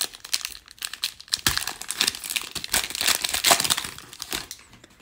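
Foil wrapper of a Panini Prizm Premier League trading card pack being torn open and crinkled by hand: dense crackling that stops about four and a half seconds in.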